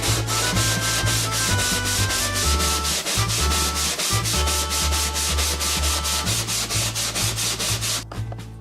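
Hand sanding: an abrasive rubbed rapidly back and forth, about five strokes a second, to grind a twisted crosscut-saw support base flat. It stops abruptly near the end, with background music underneath.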